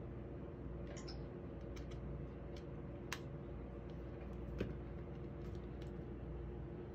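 Scattered small clicks and taps of phones being handled and a USB cable plugged into an iPhone and a PinePhone, the sharpest click about three seconds in and a duller knock a little later, over a steady low hum.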